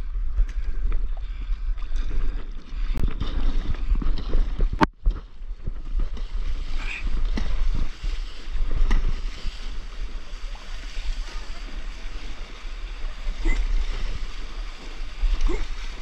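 Water splashing and rushing around the nose of a surfboard riding a small wave, under a heavy wind rumble on the microphone. A sharp knock about five seconds in.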